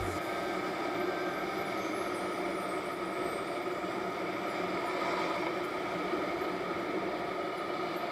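Motorcycle riding along at a steady pace: engine and wind noise, picked up by an action camera's built-in microphone.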